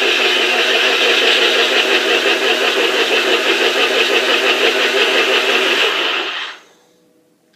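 Blender motor running steadily, blending veggie straws into water, then switched off about six and a half seconds in.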